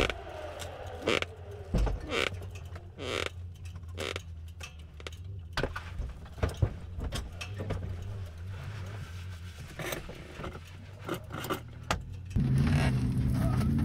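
Scattered knocks, scrapes and metallic rattles as occupants climb out of a Can-Am Maverick X3 side-by-side lying on its side after a rollover, over a low steady hum. Near the end a louder steady engine sound takes over.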